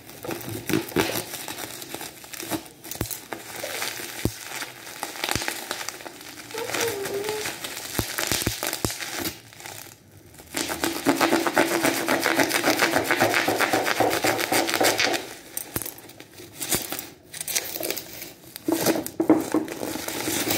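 Plastic packaging being crinkled and pulled off a new skateboard, with scattered sharp clicks, then a denser, louder stretch of crackling about halfway through.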